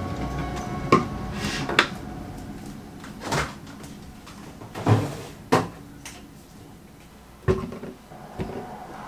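About seven separate clunks and knocks of kitchenware being handled and set down on a countertop, as a plastic blender jar, its blade base and a banana are set out.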